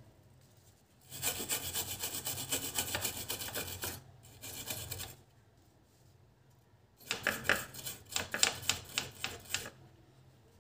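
A brush scrubbing the surface of a car ECM circuit board to clean it: two bouts of quick back-and-forth scratchy strokes, the first lasting about four seconds with a short pause, the second starting about seven seconds in.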